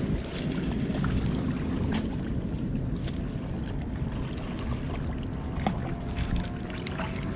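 Steady outdoor wind and water noise at a rocky seawater shoreline: wind rumbling on the microphone over water lapping against the rocks, with a few light handling clicks and a faint steady tone in the last couple of seconds.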